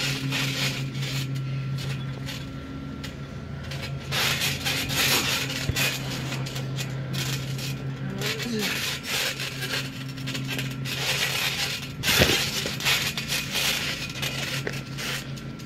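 Wrestlers landing and moving on a backyard trampoline: thumps on the mat with the metal springs creaking and jangling, the loudest bursts about four seconds in and again about twelve seconds in. A steady low hum runs underneath.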